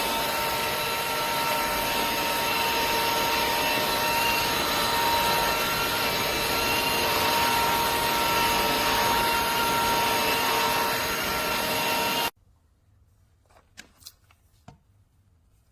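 Vacuum cleaner motor running with a steady high whine over airflow noise, switched off abruptly about twelve seconds in, followed by a few faint clicks.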